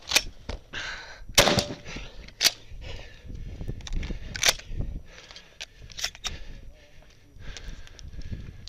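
Shotgun firing about five loud shots a second or two apart, with smaller clicks and rattles between the shots.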